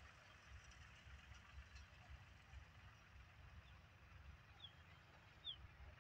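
Faint open-air background: an uneven low rumble, with three short falling bird chirps in the second half.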